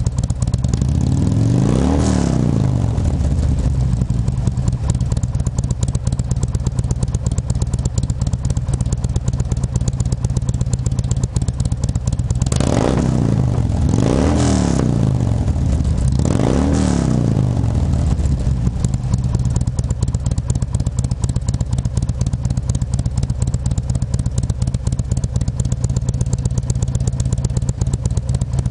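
Harley-Davidson Ultra Classic's V-twin, built to 107 cubic inches with Wood TW-555 cams and a Jackpot 2-1-2 head pipe with 3.5-inch slip-on mufflers, idling at the exhaust tips. It is revved up and back down four times: once about two seconds in, and three times in quick succession a little past the middle.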